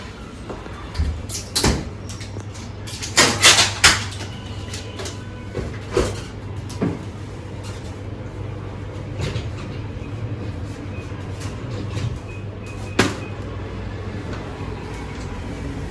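A new LG dishwasher being opened and handled: a run of clunks, knocks and sliding scrapes, busiest about three to four seconds in, with single knocks later on, over a steady low hum.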